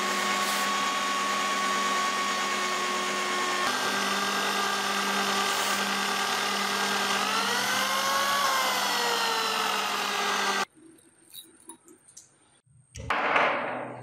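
Electric drill running a small twist bit into the steel head of an old adjustable wrench, drilling out the pin that holds the worm screw. The steady motor whine bends up and back down in pitch about eight seconds in and stops abruptly near eleven seconds, followed near the end by a short burst of noise.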